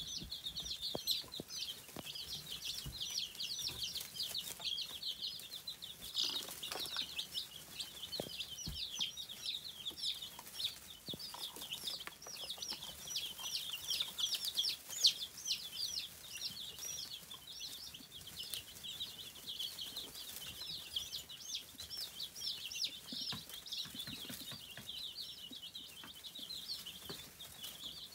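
A brood of baby chicks peeping without a break: many short, high chirps overlapping, with occasional soft taps.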